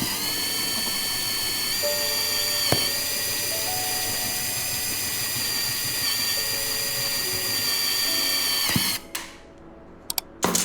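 Small electric power tool motor running steadily with a high-pitched whine, as in drilling or cutting; it stops about nine seconds in, followed by a few sharp clicks.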